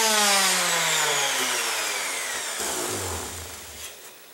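Electric orbital sander with 180-grit paper switched off, its motor whine falling steadily in pitch and fading as it spins down over about three seconds.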